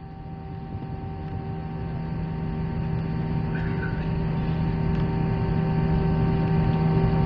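Cabin noise of an Airbus A321-231 rolling on the ground, heard from a seat over the wing: the steady hum of its IAE V2500 turbofans over a low rumble, getting gradually louder.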